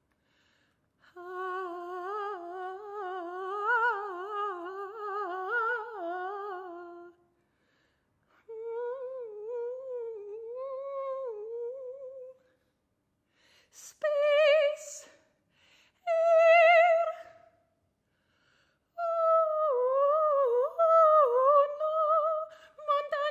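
A solo woman's voice singing wordlessly in long, wavering sustained notes, in five phrases with short pauses between them. The phrases climb higher in pitch as they go, and the two short ones in the middle carry a quick vibrato.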